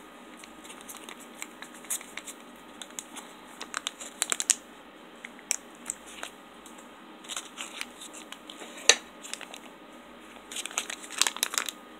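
U.S. Mil-Spec ration peanut butter pouch crinkling and tearing as it is handled and opened. It comes in scattered bursts of crackles, with the sharpest one about nine seconds in.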